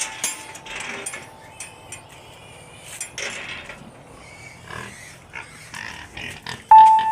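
Pigs grunting and snuffling in short, irregular sounds, with a few sharp knocks.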